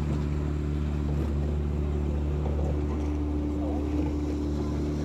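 A boat engine running at a steady low drone.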